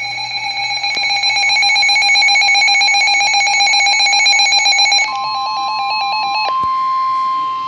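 Weather alert radio sounding its alarm: a loud, rapidly pulsing electronic beep. About five seconds in, the steady NOAA Weather Radio 1050 Hz warning alarm tone starts, and the pulsing beep stops about a second later. The tone signals that a severe weather warning is being broadcast.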